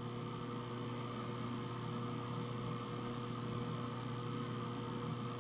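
Steady electrical hum with a light hiss: background noise of the voice recording, with no other sound.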